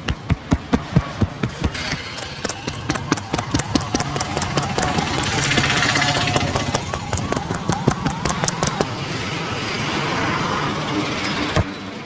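Rapid rhythmic slaps and taps of a barber's percussive hand massage, about four or five a second at first, then faster and denser.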